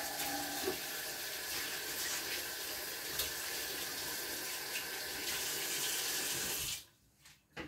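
Kitchen tap running steadily into a sink, with water splashing off the basin; the tap is shut off about seven seconds in and the water stops suddenly.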